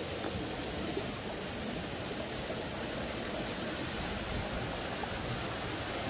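Mountain stream rushing over boulders and a small waterfall pouring, a steady rush of water running strong even in midwinter.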